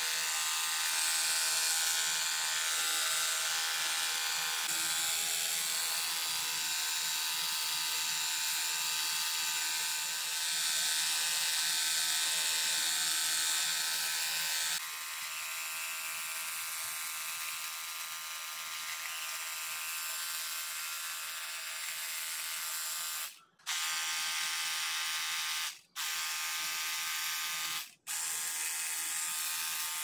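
Small battery-powered pressure washer pump whining steadily as it sprays water against the fins of an aluminium air-conditioner evaporator core, with a hiss of spray. The whine steps down in pitch and level about halfway through, and near the end cuts out briefly three times.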